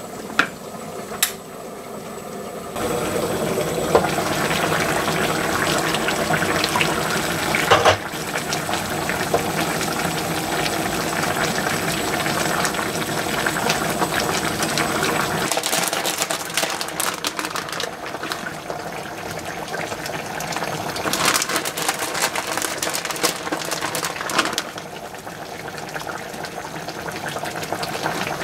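Liquid bubbling and simmering in a cooking pan, a steady wet noise that gets suddenly louder about three seconds in.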